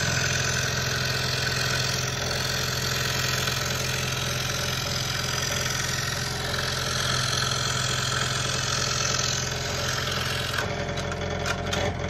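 Scroll saw running at a reduced speed setting of about 6, its reciprocating blade cutting through two stacked quarter-inch MDF boards: a steady motor hum under a dense rasping hiss. Near the end the cutting hiss drops away and a lighter ticking of the running saw is left.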